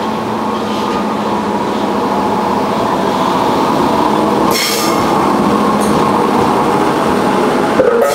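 Ex-Toei 6000-series electric commuter train running past the platform: a steady, loud rumble of traction motors and wheels on the rails. A brief high-pitched squeal comes about four and a half seconds in.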